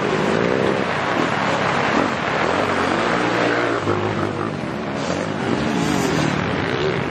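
Dirt-bike engines revving, their pitch rising and falling as several bikes run the track, over the steady hiss of heavy rain.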